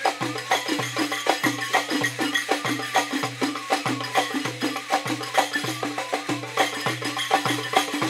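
Egyptian tanoura dance music played live: hand drums and a riq-type frame drum beat a steady, driving rhythm of about two low strokes a second.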